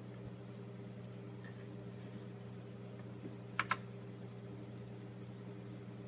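A single mechanical keyboard keystroke about halfway through, a sharp double click as the key goes down and comes back up, over a steady low electrical hum.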